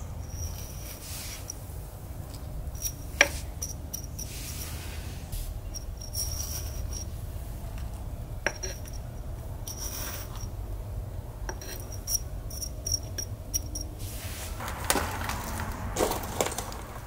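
Fingers pressing scallion root ends into gritty potting soil in a terracotta pot: soft rustling and crunching of soil, bark and perlite, with a few sharp clicks, one of them loud about three seconds in, and a louder rustle near the end. Short high chirps come and go in the middle.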